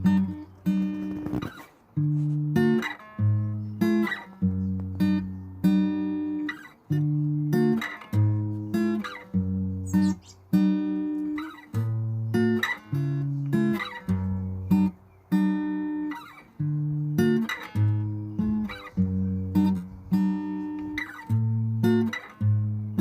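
Background music: an acoustic guitar strumming and picking chords in a steady rhythm, each chord ringing and fading before the next.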